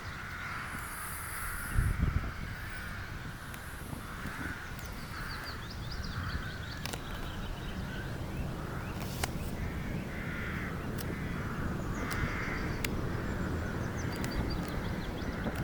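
Birds calling with a steady string of harsh, caw-like calls, about one or two a second, with fainter high chirps and a low rumble beneath; a bump sounds about two seconds in.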